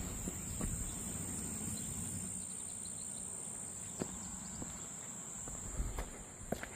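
Steady high-pitched drone of an insect chorus over the rushing of flood runoff in a roadside ditch stream, with a few footsteps on the roadside.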